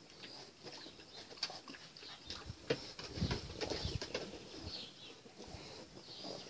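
French bulldog puppies splashing and lapping in shallow water in a plastic paddling pool: irregular small splashes and clicks, busiest about three to four seconds in. Birds call in the background.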